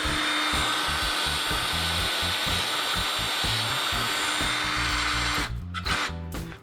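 Small power tool running steadily under load, cutting metal to elongate the mounting holes in an engine valley tray; it stops near the end. Background music plays underneath.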